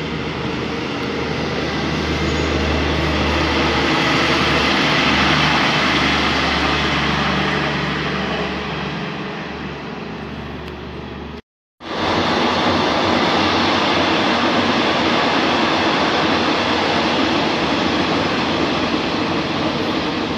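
Train running at speed, heard from on board: a steady rushing rumble with a low hum underneath. It swells a few seconds in, then cuts out for a split second about eleven seconds in and resumes at once.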